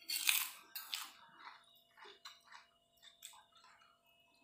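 Metal spoon scraping through rice on a plate, with close-up chewing. There is a loud scrape in the first second, then softer spoon clicks and mouth sounds.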